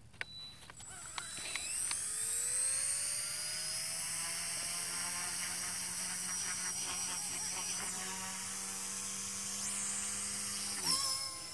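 Blade mCP X BL micro RC helicopter's brushless motor and rotor spooling up on the ground. A few clicks come first, then a high whine that rises in pitch and settles into a steady drone. Near the end it briefly gets louder with a sharp change in pitch as the helicopter lifts off.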